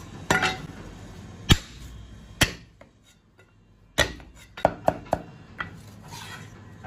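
Chinese cleaver knocking on a wooden chopping block while cutting up garlic cloves: three single knocks, a short pause, then a quick run of five chops. A soft scrape follows as the chopped garlic is gathered on the board.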